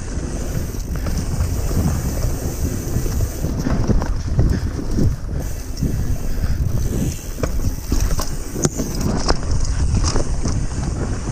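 Wind buffeting the action camera's microphone as a mountain bike rides down a rough dirt trail, the bike rattling over the bumps with sharp knocks from rocks and roots throughout.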